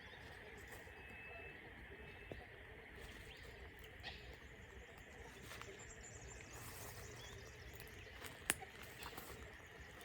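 Faint steady background hiss with a few short, thin bird chirps, and a single sharp click about eight and a half seconds in.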